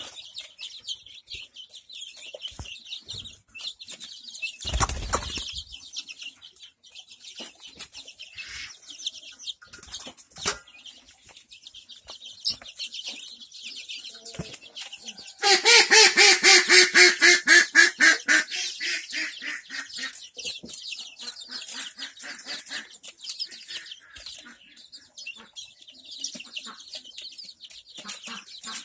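Young desi chickens peeping continuously while they peck grain from a feeder, with light tapping of beaks. About five seconds in there is a short thump, and a little past halfway a loud, rapidly pulsing call lasts about three seconds.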